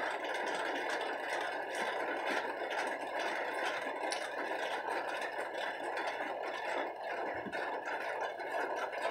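A steady rushing background noise, with a few faint clicks and scrapes of rice being eaten by hand from a plate.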